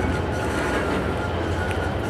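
EMD diesel locomotive approaching slowly, with a steady low engine rumble and a faint, steady high whine above it.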